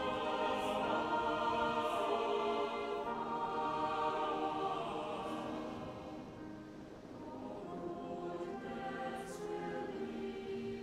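Choral music: a choir singing slow, sustained chords, getting quieter about six seconds in.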